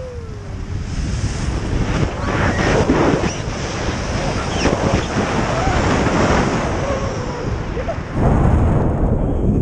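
Wind rushing past and buffeting the microphone of a pole-mounted camera in flight under a tandem paraglider, growing louder about eight seconds in.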